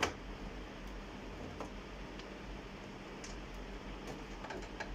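Light clicks and taps of a screwdriver and fingers on the plastic housing of an HP ScanJet Enterprise 7500 scanner as it is worked apart, with one sharp click right at the start and smaller scattered clicks after, over a steady low hum.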